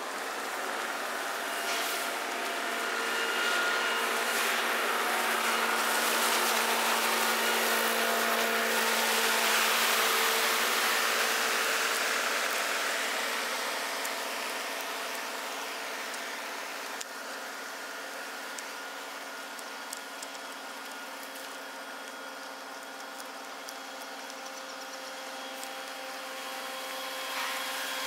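Steady engine drone of ships and tugboats across the water: a hum of several steady tones over a hiss. It swells toward the middle and eases off in the second half.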